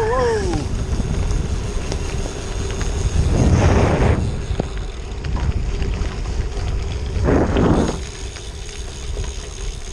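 Bicycle tyres rolling over a wet gravel road, with wind noise on the handlebar-mounted action camera's microphone. Two louder rushes of noise come about three and a half and seven and a half seconds in.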